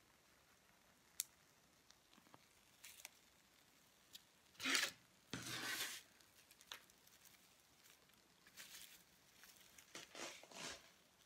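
Dry wood shavings rustling as they are picked up and bunched by hand, with a few faint clicks from small objects on the table. The loudest rustling comes in two bursts about five seconds in, with more near the end.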